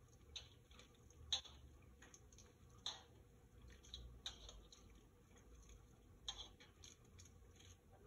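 Faint, irregular clicks and taps of gloved hands mixing chicken pieces in a stainless steel bowl, with the sharpest tap about a second in.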